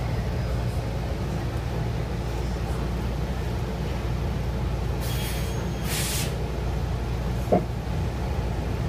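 City bus interior: the engine runs with a steady low rumble, and about five and six seconds in come two short hisses of compressed air from the bus's pneumatic system as it pulls in for a requested stop. A brief sharp sound follows shortly before the end.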